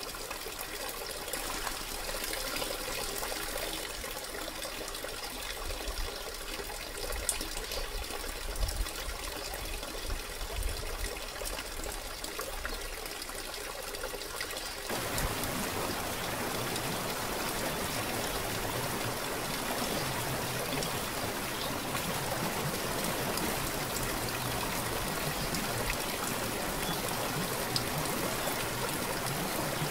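Running water: a small waterfall spilling into a pool. About halfway through it changes to the fuller, steady rush of a rocky mountain stream.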